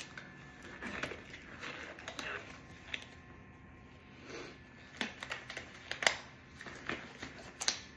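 Clean disposable exam gloves being pulled on over both hands: faint rubbery rustling and rubbing, with several short sharp clicks.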